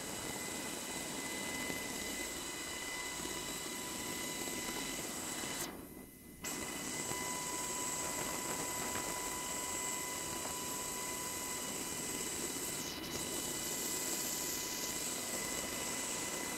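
HH-60G Pave Hawk helicopter running, heard from inside the cabin: its twin turboshaft engines and drivetrain give a steady rush with several high steady whines. The sound dips out briefly about six seconds in.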